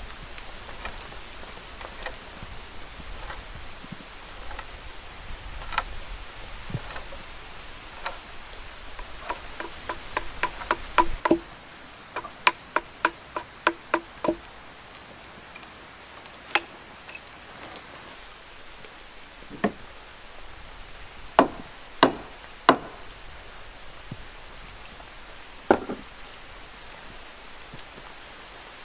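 Rain falling steadily for the first ten seconds or so, then a quickening run of sharp wooden knocks around the middle, followed by single knocks a second or more apart: tools striking timber.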